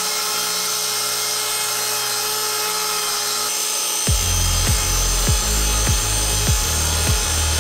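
Festool TS 75 EQ plunge track saw running as its blade cuts through the countertop board, a steady high whine and hiss. About four seconds in, background music with a steady beat, a little under two beats a second, comes in over it.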